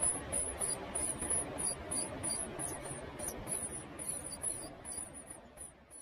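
Great tit nestlings begging: a rapid series of very thin, high calls, about three or four a second, over a steady background hiss, fading out near the end.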